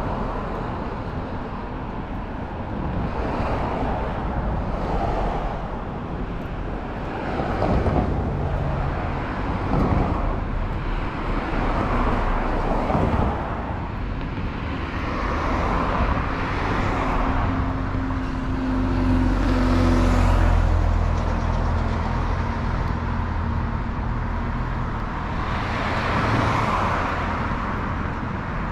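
Street traffic: cars passing one after another, each swelling and fading over a few seconds. A heavier engine with a low hum is loudest about two-thirds of the way in.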